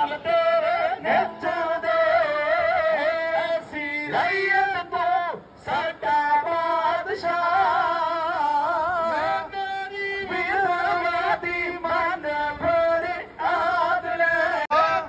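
Music with singing: a voice carrying a wavering, ornamented melody, with a few short breaks.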